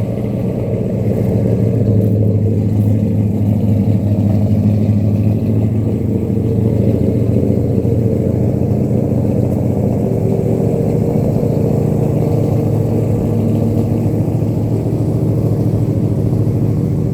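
Car engine running steadily at low revs, a deep even note that holds unchanged.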